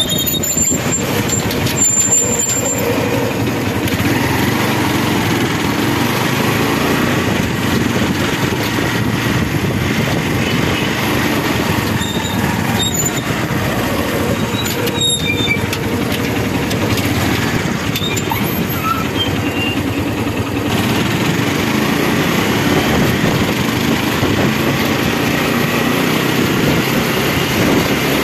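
Steady engine and road noise of a moving vehicle, heard from on board as it drives along.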